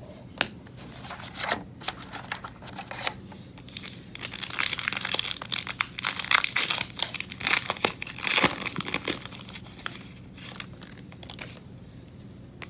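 Plastic foil trading-card pack wrapper being torn open and crumpled by hand: a few sharp crackles at first, then several seconds of dense crinkling, with a few last crackles near the end.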